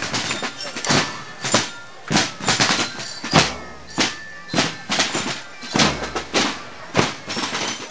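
Marching drums beaten in a processional rhythm: sharp strikes roughly every half second, with a few deeper booms underneath.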